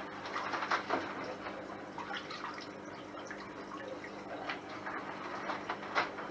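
Hands splashing and sloshing in a shallow tank of seawater while rummaging among live crabs, with small irregular splashes and drips, a sharper splash about a second in and another near the end. A steady low hum from the tank's pump system runs underneath.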